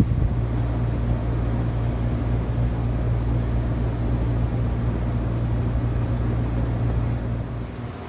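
Generic hugger ceiling fan running, a steady low hum under a soft rush of air; the hum fades near the end.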